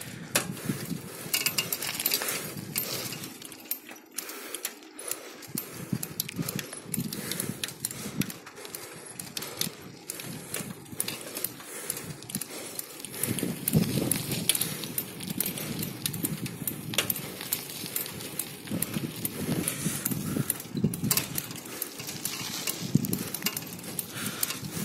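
Bicycle ridden over a rough, potholed road: irregular rattling and knocking from the frame and parts over the bumps, with tyre noise on the broken surface.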